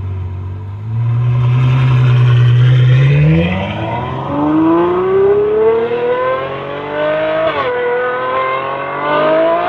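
Ferrari F12's V12 running through a titanium Valvetronic Designs exhaust with the valves open, under acceleration. The engine note holds low for about three seconds, then climbs steadily in pitch, drops once at a gear change about seven and a half seconds in, and climbs again.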